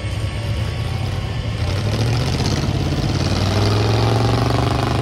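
GAZ 66 trial truck's engine pulling under load up a steep dirt mound, the revs rising from about two seconds in and the engine getting louder toward the end.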